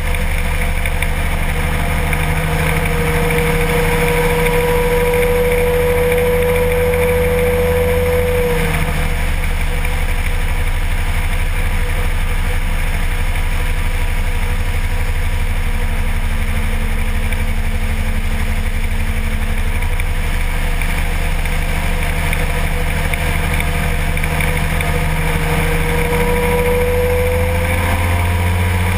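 Kolb ultralight aircraft's engine and propeller droning steadily in flight. The engine note drops a little about eight seconds in and climbs again near the end as the throttle is eased back and opened up.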